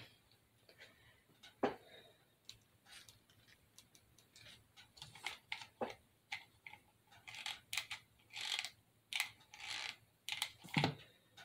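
Irregular small clicks and taps of hands working a hot glue gun and handling plastic craft pieces while gluing a fake cookie in place, with a louder knock about two seconds in and another near the end. The clicking gets busier in the second half.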